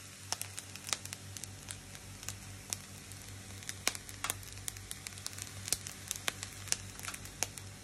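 Egg fried rice crackling in a hot non-stick frying pan: scattered sharp pops at irregular moments over a steady low hum.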